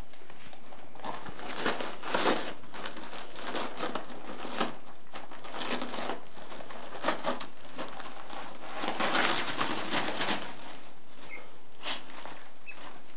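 Christmas wrapping paper crinkling and tearing as a black Labrador rips it open with her mouth and paws, in irregular rustling bursts, loudest about two seconds in and again around nine to ten seconds, dying down near the end.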